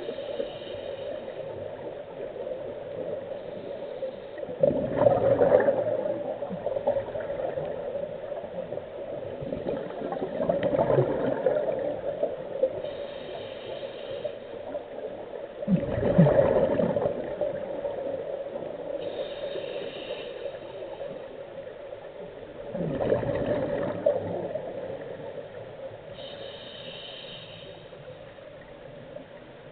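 Scuba regulator breathing heard through an underwater camera housing. A gurgling burst of exhaled bubbles comes about every six seconds, four times, with a faint hiss of inhaling between them, over a steady hum.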